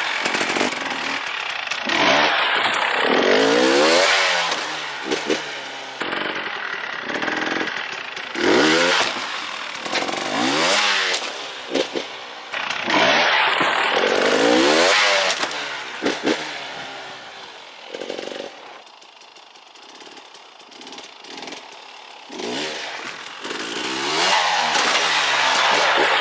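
KTM 300 XC-W TPI single-cylinder two-stroke dirt bike engine revving up and falling back over and over as it is ridden, with a quieter stretch about three quarters of the way through.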